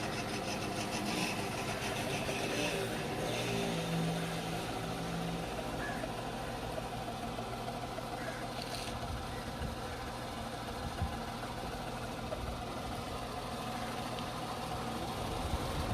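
Tata Tiago engine idling steadily under the bonnet. For the first three or four seconds a rapid, high-pitched chatter rides over it, the weird bonnet noise the car was making.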